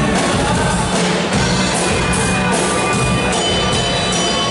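Live amplified rock band playing: electric guitar over a drum kit, with regular cymbal hits a few times a second.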